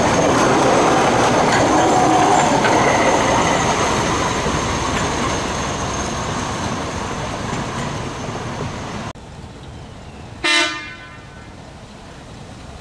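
Miniature railway train running past on its narrow-gauge track, the sound of the wagons fading steadily before cutting off abruptly. About a second and a half later the diesel locomotive D3 gives one short horn toot.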